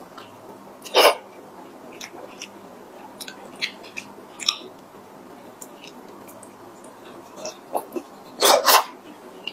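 Close-miked eating of a soft cream-filled crepe roll cake from a spoon: quiet wet chewing and small mouth clicks, with two louder wet mouth sounds as the spoon goes into the mouth, about a second in and near the end.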